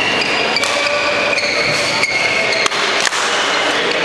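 Sports hall ambience during badminton: a few sharp racket strikes on shuttlecocks and short high shoe squeaks on the court mats, over a steady hiss of hall noise.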